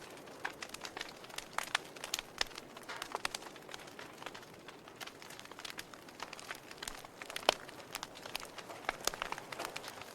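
Wood fire burning in a fireplace: a soft steady hiss with irregular crackles and pops, the sharpest pop about seven and a half seconds in.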